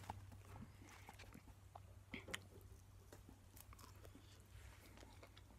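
Faint close-up chewing of a mouthful of cooked beaver meat: soft wet mouth clicks, with a sharper crunch a little over two seconds in, over a low steady hum.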